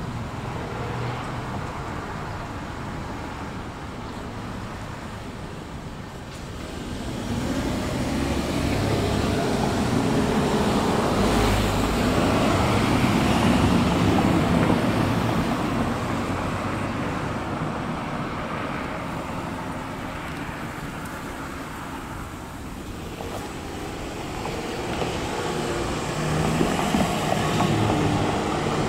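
Road traffic passing through an intersection: a vehicle's engine and tyre noise builds about a quarter of the way in, is loudest near the middle and fades away, and another vehicle approaches near the end, over a low steady engine hum.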